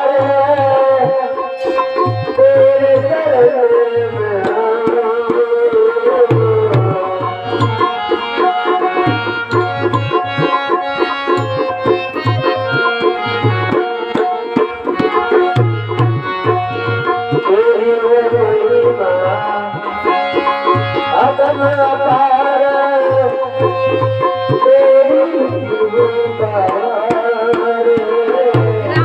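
Instrumental music of a Hindi devotional ghazal: tabla keeps a steady rhythm of deep bass strokes under a gliding melodic instrument line.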